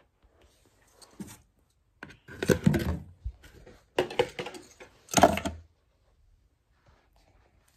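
Toys being dropped into a cardboard box, clattering against the cardboard and each other: a small knock, then three louder bursts of rattling.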